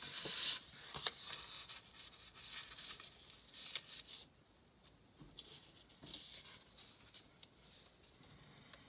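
Paper sticker sheets and planner pages being handled: light rustling and crinkling with small clicks and taps. It is busiest in the first four seconds and comes back more faintly about six seconds in.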